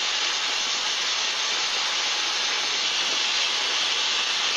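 Steam locomotive standing and venting steam: a loud, steady, high-pitched hiss.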